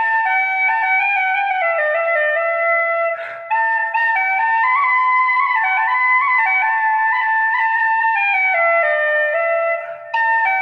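An Irish flute playing a slow, stepwise melody, with two short gaps in the line, about three seconds in and near the end.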